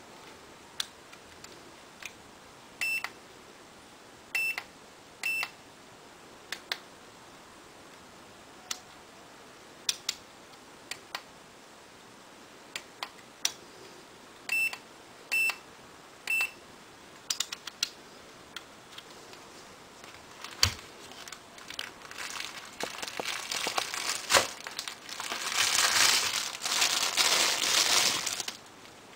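Uni-T UT203 clamp multimeter being worked: sharp clicks of the rotary function dial and push buttons, with six short electronic beeps from the meter in two groups of three. From about three quarters of the way in, loud crinkling of the plastic bag around the test leads as they are handled.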